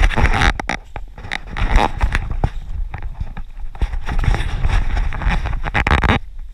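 Running footsteps on a dirt forest trail, under a loud rushing noise on the camera mic that cuts off suddenly about six seconds in.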